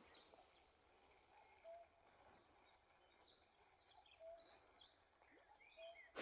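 Near silence with faint birdsong: scattered high chirps and short glides, and a brief lower note repeated every couple of seconds.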